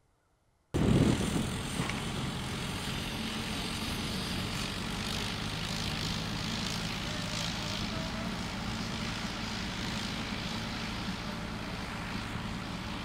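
Engine of a small compact loader running steadily under load as it tows a recovery rig on skids, starting suddenly about a second in.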